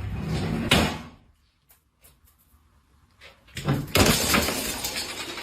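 Two bursts of clattering, scraping noise, each with a sharp knock, separated by a short quiet gap.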